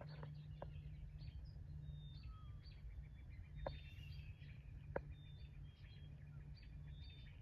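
Several songbirds chirping and singing in short, faint calls over a steady low rumble, with a few sharp clicks.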